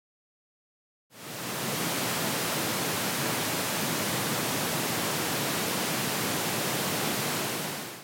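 Pink noise test signal from a home-theatre calibration disc, played in phase through the left and right front speakers so that it should seem to come from between them. It starts about a second in, holds at a steady level with little deep bass, and cuts off sharply near the end.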